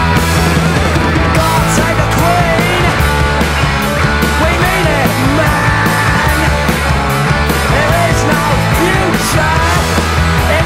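Loud punk rock music with a steady, driving beat.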